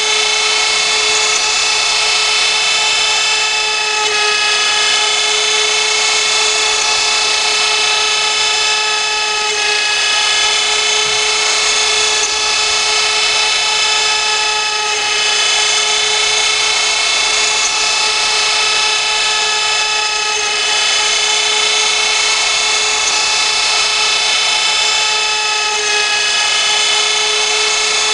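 CNC router spindle running at high speed while cutting, a steady high-pitched whine over a hiss, with slight shifts in pitch every five seconds or so.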